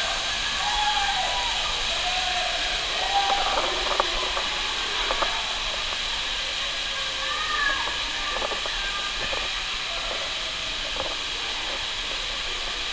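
Steady hiss of water cascading from a waterfall into a lazy river and splashing, with faint distant voices and a few short splashy knocks, the sharpest about four seconds in.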